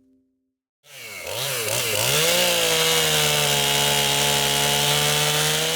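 Chainsaw engine starting up about a second in, revved up and down a couple of times, then held at a steady high speed.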